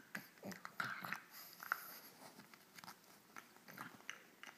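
A pug chewing and gnawing a plush Cookie Monster toy: irregular soft bites, smacks and clicks, the loudest about one to two seconds in.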